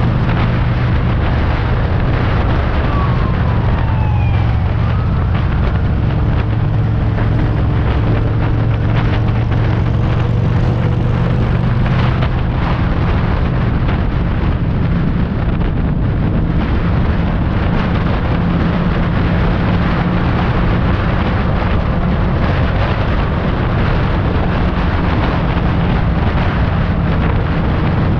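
Motorcycle engine running steadily at highway cruising speed, with wind rushing and buffeting over the microphone.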